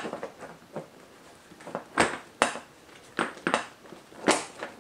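Passenger seat of a Yamaha MT-07 being fitted back onto the tail and pressed down into place: a string of sharp, irregular knocks and clunks, about nine in under five seconds.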